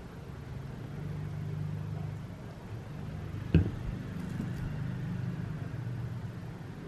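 One sharp knock about halfway through, from a plastic shampoo bottle set down on a table, over a steady low rumble of background noise, followed by a few faint ticks.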